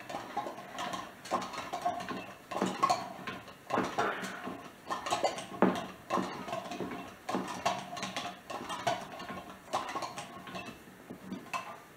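1915 hand-cranked glass-jar butter churn being turned: its metal gears and paddle clink and knock against the jar about once a second, with a faint squeak between. The cream inside is still runny, not yet turned to butter.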